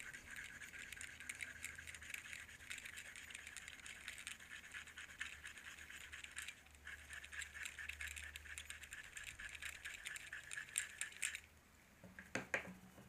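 Fishing lure hook point being sharpened with fast, short scraping strokes of metal on a sharpener, with a short break about six and a half seconds in. The scraping stops near the end, and a couple of light clicks follow.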